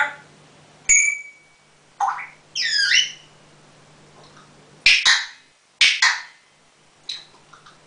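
African grey parrot calling: a series of short whistles and harsh squawks, with a run of falling whistles about two seconds in.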